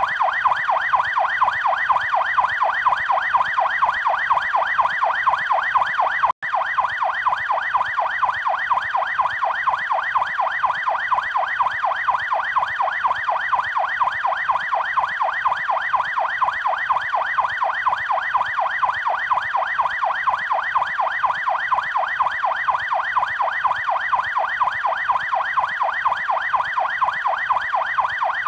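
Electronic police siren in fast yelp mode: a rapid, evenly repeating up-and-down wail that runs steadily, broken by a momentary dropout about six seconds in.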